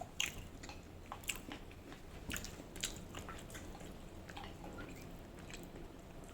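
Close-miked chewing and mouth sounds of a person eating rice and cooked vegetables: soft, irregular wet clicks and smacks.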